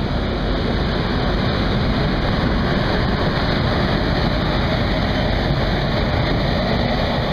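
Steady wind buffeting the microphone from a moving train, over the train's running rumble.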